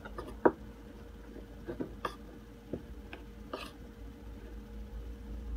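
Spoon stirring a sticky sardine, cabbage and flour mixture in a ceramic bowl: a few soft, scattered clicks and short scrapes against the bowl.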